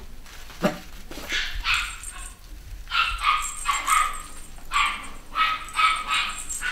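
Cavachon puppies yapping: a string of about a dozen short, high-pitched barks in quick runs of two or three, starting about a second in. A single sharp knock comes just before the first bark.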